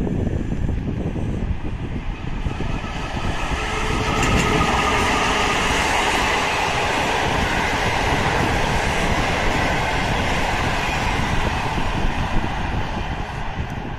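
EP07 electric locomotive hauling a train of passenger coaches past: wheels running on the rails, growing louder about four seconds in as the coaches pass close, then dropping away near the end.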